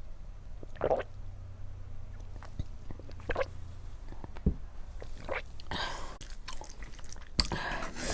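Close-miked chewing and wet mouth sounds of a person eating rice with chicken curry: irregular soft bites and smacks, a few sharp clicks, and longer rustly stretches near the middle and the end.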